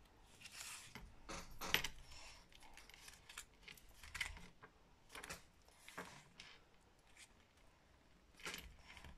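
Faint, scattered rustles and light taps of paper and corrugated cardboard being handled and pressed into place on a cutting mat, the sharpest tap just under two seconds in.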